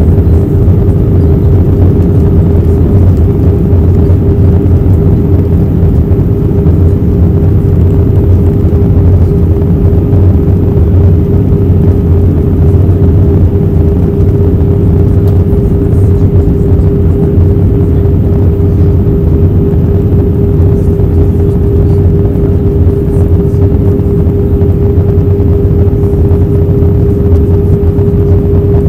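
Steady cabin noise of an Airbus A321-131 in flight, heard inside the cabin at a window seat over the wing: the drone of its IAE V2500 turbofans and the rush of air, with a steady hum running through it.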